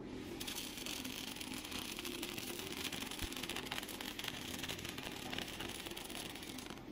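Aluminum stick electrode arc welding an aluminum bracket: a steady crackling hiss full of fine rapid pops. It strikes up about half a second in and breaks off just before the end as the rod is pulled away.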